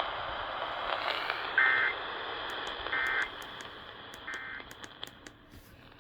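Emergency Alert System end-of-message code: three short bursts of warbling two-tone data, about 1.4 seconds apart, signalling that the alert is over. They sound over steady radio hiss that fades toward the end, with a few faint clicks.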